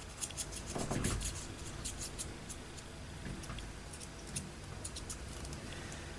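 Paper being handled at a craft table: light crackling rustles and small clicks, with a louder rustle about a second in, then a few scattered ticks.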